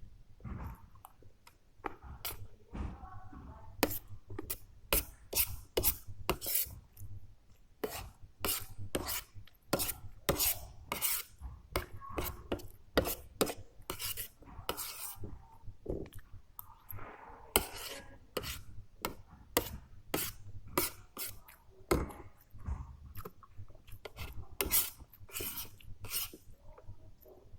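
Close-miked eating of chicken curry and rice: irregular wet clicks and smacks of chewing, with a utensil scraping and tapping on a plate.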